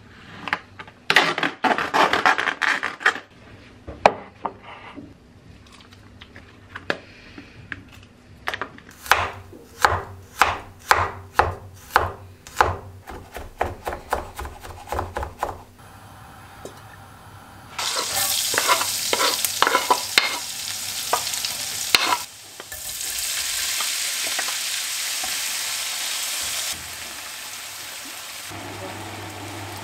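Plastic crackling as a tray of shrimp is cut open. Then a knife chops garlic on a wooden cutting board in quick regular strokes, about two a second. Then shrimp sizzle loudly in a frying pan on a gas hob, with a low steady hum coming in near the end.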